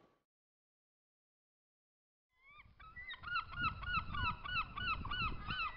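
After about two seconds of silence, geese start honking in a quick run of short, falling calls, about four a second, over a low rumble.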